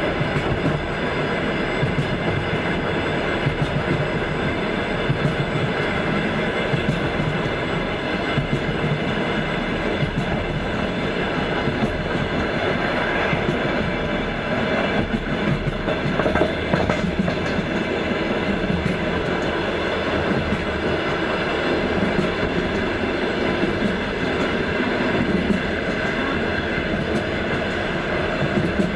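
Passenger train running at speed: a steady rumble of the carriages with the wheels clattering over the rail joints in scattered sharp clacks.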